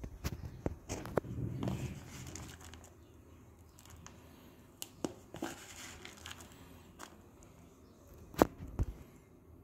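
Hand handling a clear plastic tub of crumbly rearing paste: scattered light clicks and taps on the plastic and a soft rustle of the grains, with a sharper knock just after eight seconds.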